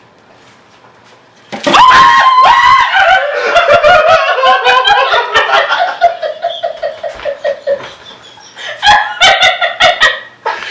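A high shriek about a second and a half in that breaks into a long fit of laughter in rapid pulses, falling in pitch, with another burst of laughter near the end.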